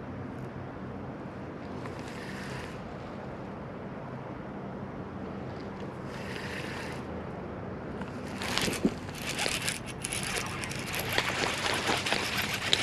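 Steady wind rush on the microphone with two short hisses. Then, from about eight seconds in, a close, dense crackle of rubbing and rustling as a hand handles the camera.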